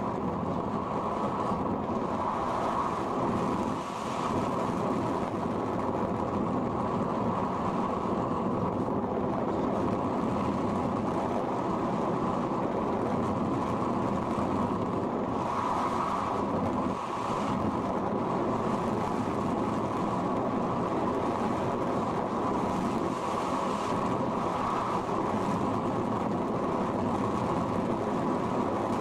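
Steady rush of wind over the microphone of a camera mounted on a radio-controlled sailplane in flight, muffled and dull. It dips briefly about four seconds in and again about seventeen seconds in.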